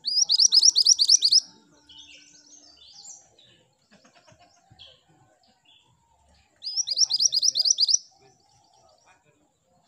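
Mantenan gunung (minivet) singing: two fast runs of about eight high, rising notes each, one at the start and another about seven seconds in, each lasting about a second and a half, with softer scattered chirps in between.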